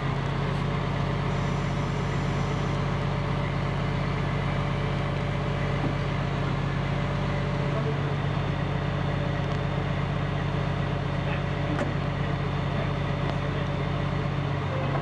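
Crane truck's engine running at a steady, even speed, powering the crane as it lowers the gun into place.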